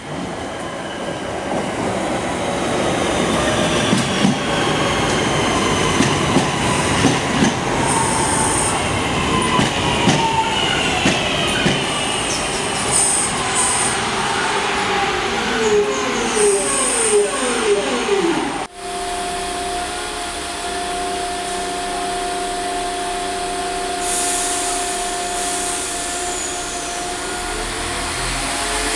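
A train running and slowing, with wheels on rail, a falling whine and wheel squeal. About two-thirds of the way through the sound cuts off abruptly and gives way to a steady hum with one held tone.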